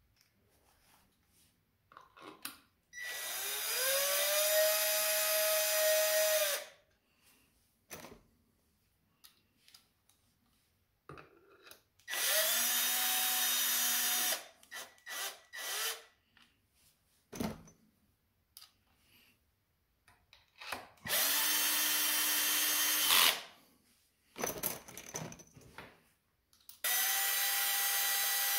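Cordless drill-driver running screws into a motorcycle engine's aluminium side cover. It gives four runs of a motor whine, each a few seconds long, the first rising in pitch as it spins up, with short bursts and clicks between the runs.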